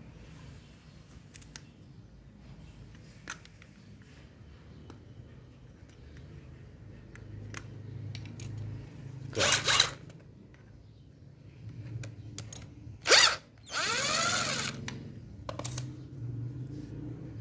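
An old Makita angle grinder being handled and pried apart with a small screwdriver: faint metal clicks and scrapes. Then come three loud rasping scrapes, about nine and a half and thirteen seconds in, and a longer one of over a second just after. A steady low hum sits underneath.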